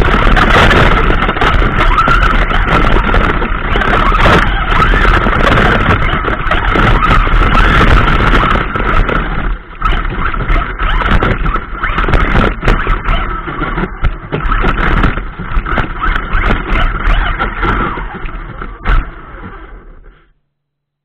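WLtoys K939 RC car's 3656 4000 kV brushless motor and drivetrain, heard from on board, with a steady whine while driving over grass and many short knocks from the rough ground. The sound eases after about ten seconds, fades, and dies out about twenty seconds in as the car comes to rest.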